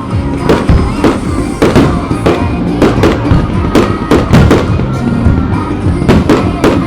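Fireworks shells bursting in quick succession, about two bangs a second, with music playing underneath.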